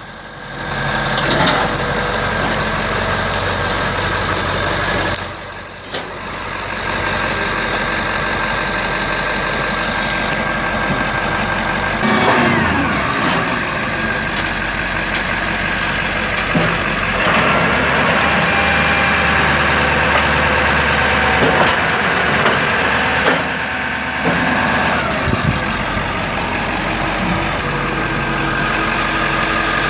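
International T444E 7.3-litre V8 turbo diesel in a 2001 International 4700 dump truck running at idle, a steady diesel clatter with a few brief shifts in pitch.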